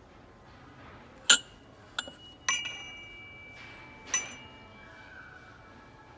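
Silver metal pedestal candle holders clinking against one another as one is lifted from the shelf: four sharp clinks over about three seconds, the third ringing on for about a second.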